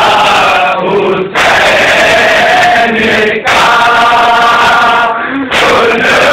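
A group of men chanting a nauha, a Shia lament, in unison. They sing long, drawn-out phrases that break briefly about a second in, again around three and a half seconds, and near the end.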